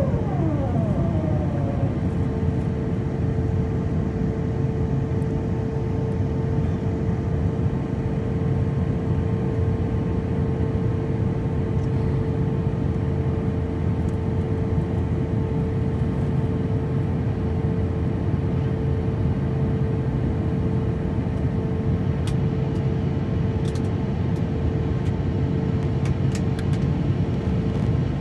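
Airliner cabin noise during the descent: a steady roar of engines and rushing air heard inside the cabin. A whine falls in pitch over the first two seconds, then holds as a steady tone.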